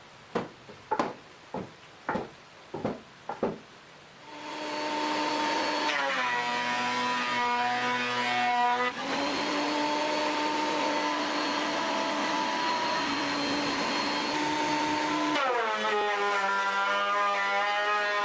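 About eight sharp knocks, then an electric power tool motor starts and runs with a steady whine whose pitch shifts in steps a few times.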